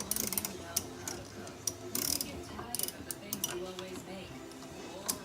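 Hand ratchet wrench clicking in short, irregular bursts as it is swung back and forth on a stuck bolt.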